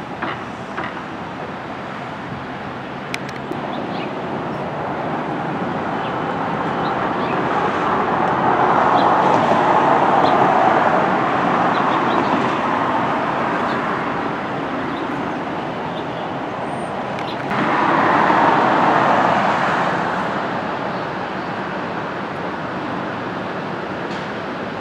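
Train rolling along the track with a steady rumble. It swells around 9 to 11 seconds in, then rises again suddenly just after 17 seconds before easing off.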